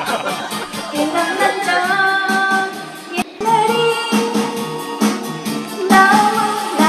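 A woman singing a song over a karaoke backing track, with a brief break about three seconds in.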